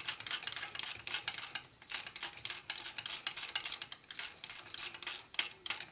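Hand ratchet clicking in quick regular strokes, about five clicks a second with a short pause near two seconds in, as a nut is run down while the shovelhead's cylinder head is bolted on.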